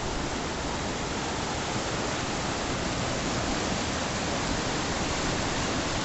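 River rapids: water rushing and tumbling over boulders, a steady hiss that holds an even level throughout.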